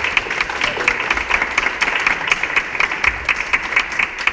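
A group of people applauding: dense, steady clapping throughout.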